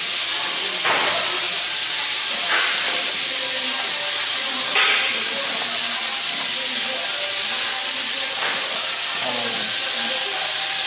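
A steady, loud hiss, with a few short soft clicks spread through it.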